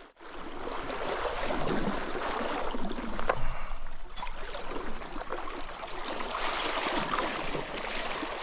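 Trout stream water flowing and splashing in a steady, uneven rush, with a few faint knocks.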